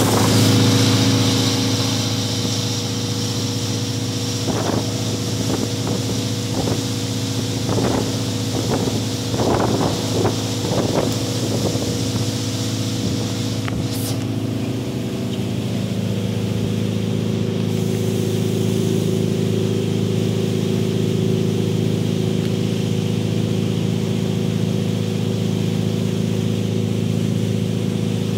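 Outboard motor running steadily under way, over the rush of water and wake. Between about 4 and 11 seconds in come a series of short splashes, and about halfway through the engine note changes and grows a little fuller.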